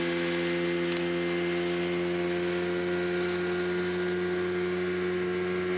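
Speedboat engine running steadily at a constant cruising speed, an even droning tone with a wash of water and wind noise underneath.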